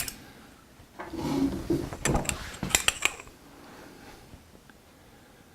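Metal tools clinking and rattling against the engine's front accessory drive while the crankshaft is turned by hand to seat the air-conditioning belt. There is a few seconds of scraping and rattling with several sharp clinks between two and three seconds in, then it goes quiet.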